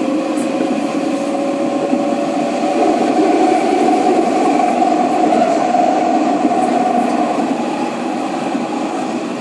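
Luas tram, an Alstom Citadis, running along its track, heard from on board: a steady rumble of wheels on rail under an electric motor whine that rises slowly in pitch through the first half and then fades.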